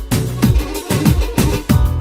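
Background music with a steady electronic dance beat and deep, falling bass drum hits.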